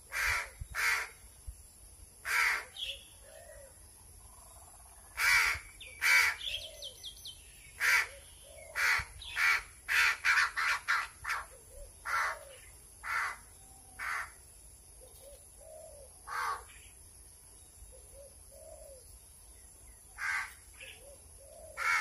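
Hungry pet crow cawing over and over in short, harsh calls, with a rapid run of caws about halfway through, begging for food while being hand-fed. Its calls are loud and noisy.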